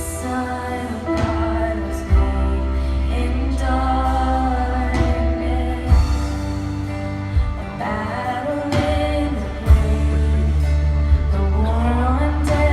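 Christian worship music: a band playing under sung melody lines over a steady sustained bass, with a sharp hit every few seconds.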